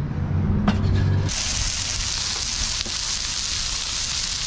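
A low steady rumble, then about a second in a sudden change to chopped onions sizzling steadily in a hot BBQ wok.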